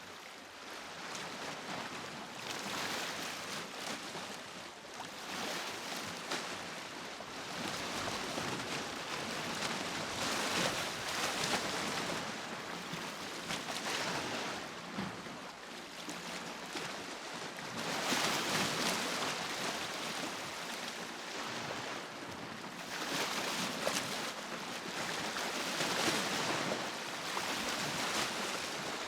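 Waves washing against the shore, an even rushing that swells and eases every few seconds.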